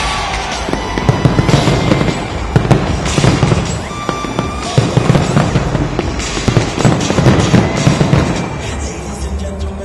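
A dense barrage of fireworks going off: many sharp bangs and deep booms in quick succession, with music playing underneath.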